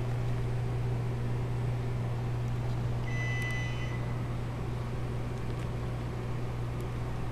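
A car engine running steadily with an even low hum, and a short electronic beep about three seconds in.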